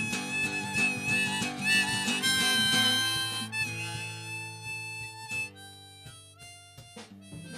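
Instrumental song passage: harmonica playing held notes over strummed acoustic guitar, growing softer after about three seconds.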